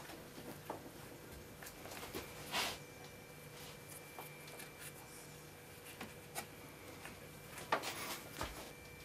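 Faint handling sounds of fingers working modelling clay into the fur around a deer head mount's eye: scattered small clicks and rustles, a brief scrape about two and a half seconds in and a few clicks near the end, over a faint steady hum.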